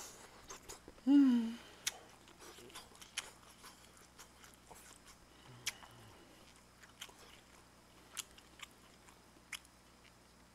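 Close-miked eating of spicy udon: a sip of broth from a spoon, a short hummed vocal sound about a second in, then soft chewing and wet mouth clicks while noodles are lifted.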